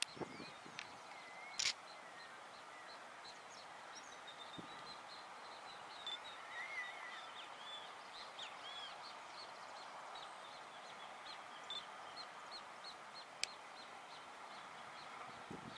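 Many small birds chirping and calling, with short, quick calls over a faint outdoor hiss. A sharp click comes about a second and a half in, and another near the end.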